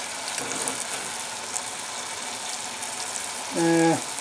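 Diced Granny Smith apples and sugar sizzling steadily as they cook in a stainless saucepan over a gas flame. Near the end a man's voice makes a brief sound of about half a second.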